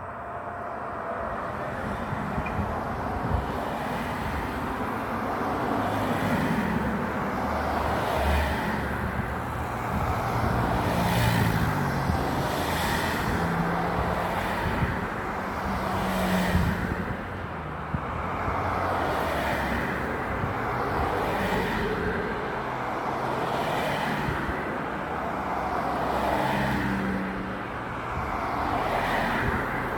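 Road traffic: cars and trucks passing one after another, their engine and tyre noise swelling and fading every few seconds.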